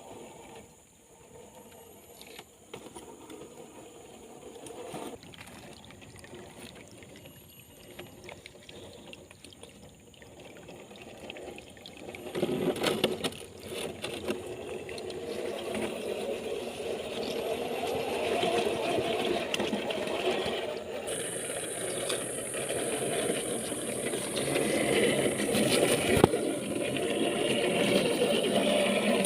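Small electric motor and gear drive of an RC rock crawler whirring, quiet at first and getting louder and busier from about twelve seconds in.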